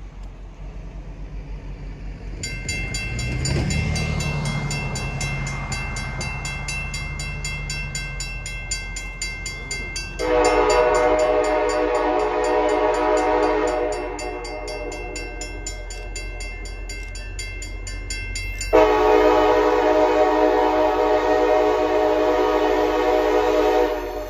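CSX diesel freight locomotives approaching out of sight, the engine rumble growing from about two seconds in with a high-pitched ringing over it. Two long air-horn blasts follow, one about ten seconds in and a longer one from about nineteen seconds to near the end, sounded for the grade crossing ahead.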